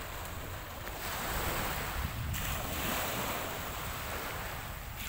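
Small waves breaking and washing up on a shell-strewn shore, swelling about a second in and again a little past two seconds, with wind rumbling on the microphone.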